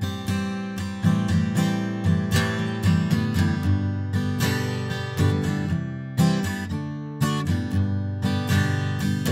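Acoustic guitar strumming chords in a steady rhythm, close-miked with a condenser microphone and recorded through an Audient iD22 audio interface.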